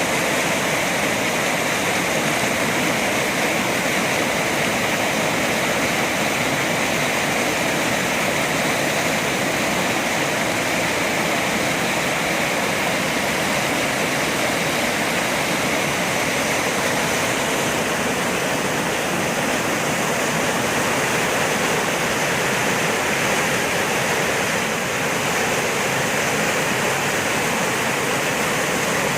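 Steady rushing water, loud and unbroken, like a stream or small waterfall.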